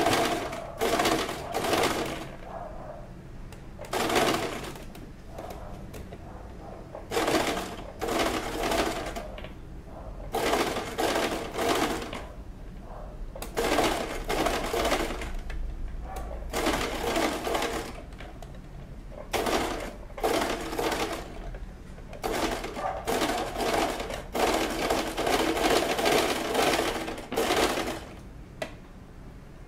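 Electric domestic sewing machine running a straight stitch in many short runs, stopping and starting every second or two as satin ribbon is eased along the curved edge of a bra cup.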